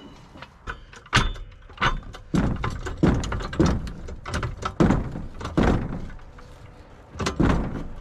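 A series of dull, heavy thunks and clunks, about a dozen at uneven intervals, from tools working on a travel trailer's wheel during a tire change.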